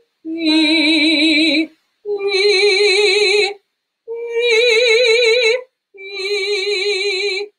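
A woman's trained singing voice demonstrating a vocal warm-up exercise: four sustained notes with steady vibrato, each about a second and a half with a short break between, climbing over the first three and stepping back down on the fourth.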